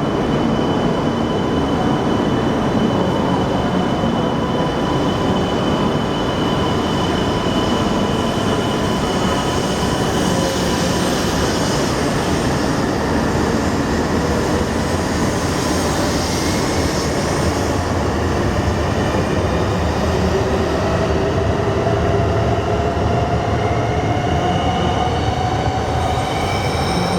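E2 series Shinkansen train pulling out of the station: a steady rumble and rush of wheels and motors, with a motor whine that rises slowly in pitch near the end as the train gathers speed.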